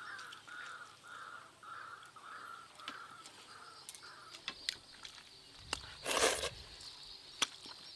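A bird calling in a quick run of short, evenly spaced notes, about two and a half a second, for the first three seconds or so. After it come faint clicks and a short rushing noise about six seconds in.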